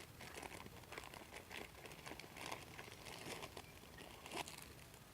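Plastic packaging around a charging cable crinkling and crackling as it is handled and opened, in quick irregular crackles with a sharper one near the end.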